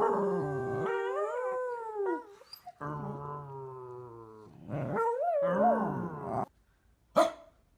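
Dog howling in three long pitched calls: a held one that rises at its end, a lower one that slowly falls, and a wavering one. A short sharp sound comes near the end.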